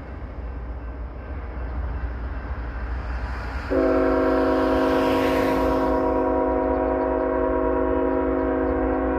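Multi-chime air horn of Union Pacific 2676, the GE C45AH-T4 locomotive leading the train, starting suddenly a few seconds in and held as one long chord of several tones, over a low steady rumble. A passing car's tyre noise swells and fades as the horn begins.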